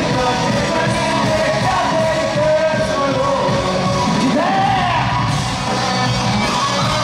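Live pop-rock concert music: a band playing with singing over it and a crowd yelling along.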